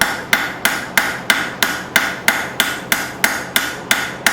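Hand hammer striking a hot mild-steel bar on an anvil in an even rhythm of about three blows a second, each blow ringing briefly: light planishing blows smoothing the taper.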